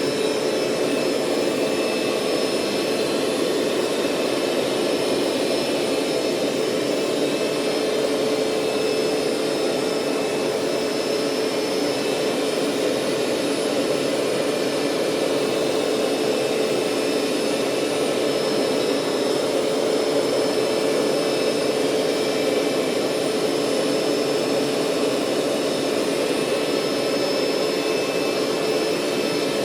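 Hoover SteamVac SpinScrub 50 upright carpet cleaner running steadily, its suction motor giving a constant hum with a whine over a rushing of air as it cleans the carpet.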